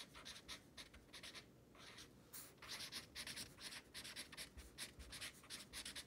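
Felt-tip marker writing on chart paper: quick, faint scratchy strokes, with a brief pause about a second and a half in.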